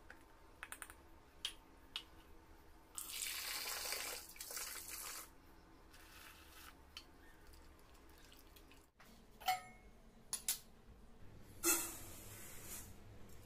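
Liquid poured from a steel tumbler into a steel bowl of flour, a steady splashing pour of about two seconds, a few seconds in. Light clinks of steel vessels and a lid come before and after it, and near the end sugar is tipped into a steel kadai with a short hiss.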